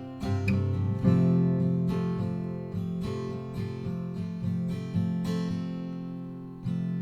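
Acoustic guitar being strummed: a series of chords, each struck and left to ring before the next, with a chord dying away near the end before a new one starts.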